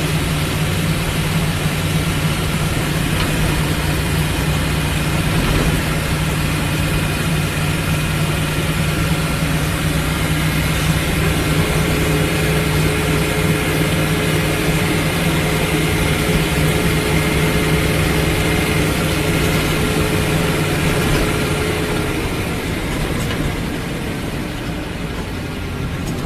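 Humvee's V8 diesel engine running steadily, with a strong low hum, easing off near the end.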